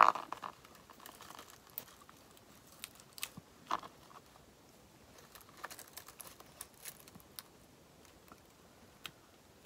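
Hands handling small craft decorations on a work surface: faint, scattered light clicks, taps and crinkly rustles, a little louder right at the start and again a few seconds in.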